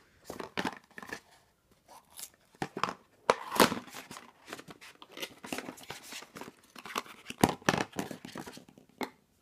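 Small cardboard gift box being slid out of an advent calendar tray and opened by hand: irregular scraping, rustling and tapping of card, with the loudest strokes about three and a half and seven and a half seconds in.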